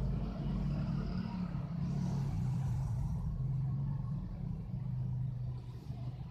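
Steady low mechanical rumble with a humming drone.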